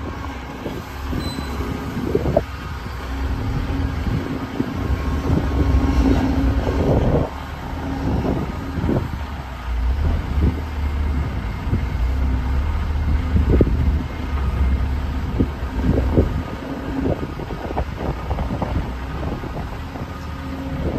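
Link-Belt 490 X4 crawler excavator's diesel engine working under load, swelling and easing as the machine digs, swings and dumps, with irregular knocks and clatter from the bucket and dirt.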